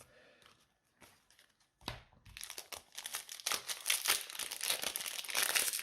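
Foil Pokémon booster pack wrapper crinkling as it is handled and torn open, starting about two seconds in after a soft knock.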